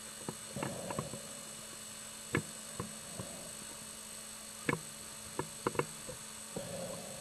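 Scattered sharp clicks and knocks over a steady hum. There are about a dozen irregular clicks, with a short noisy flurry about half a second in and another near the end.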